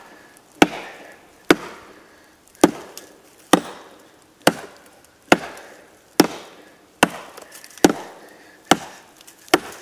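Tops Knives Bushcrafter Kukri 7.0 chopping into a solid, dry dead log: a steady run of about eleven sharp chops, roughly one a second.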